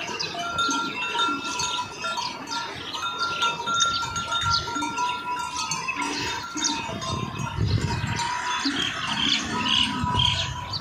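Bells on grazing cattle tinkling at the same few fixed pitches, with birds chirping over them. A low rumble comes in during the second half.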